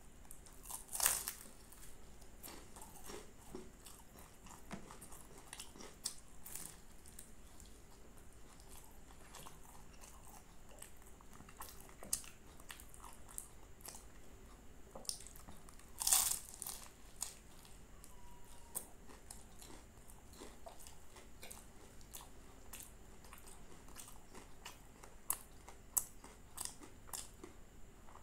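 Crisp, flaky aloo patty being bitten and chewed, with two loud crunching bites, about a second in and again a little past halfway, and small chewing and mouth clicks between them.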